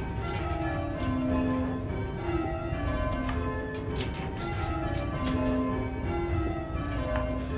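Six full-circle church tower bells ringing rounds, struck one after another from lightest to heaviest in a steady repeating sequence, each note ringing on under the next.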